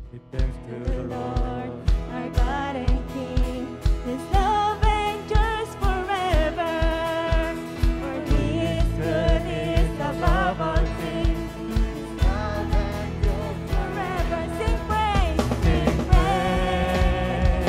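A live worship band playing and singing a song: drum kit with a steady kick-drum beat, bass guitar, keyboard and acoustic guitar under singers' voices. The bass and band fill out more fully about eight seconds in.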